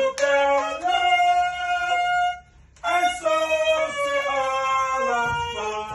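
Music: a melody of held notes that breaks off briefly a little before halfway through, then carries on.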